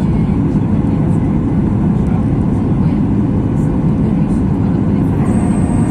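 Steady low cabin noise of a Boeing 737 MAX 8 in flight: its CFM LEAP-1B engines and airflow heard from inside the cabin. A faint high steady whine comes in near the end.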